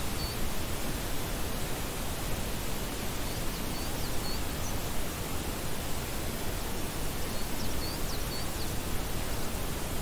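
Steady even hiss of wind through meadow grass and trees, with a small bird's faint phrase of three or four short high chirps heard three times, about every four seconds.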